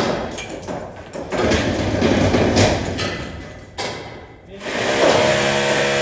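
Irregular knocking and clatter of work on a steel roof frame, then about five seconds in an electric drill's motor starts and runs with a steady whine.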